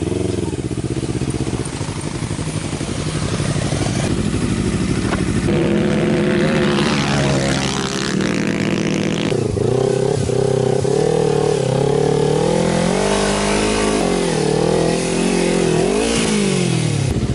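Motorcycle engine running while riding through loose volcanic sand, its pitch rising and falling again and again as the throttle is opened and closed. A rushing noise joins it for a few seconds in the middle.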